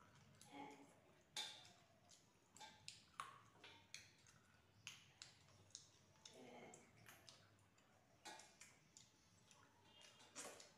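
Faint, irregular clicks and light scrapes of two people eating rice and curry by hand from metal plates, with fingers working the food on the plates.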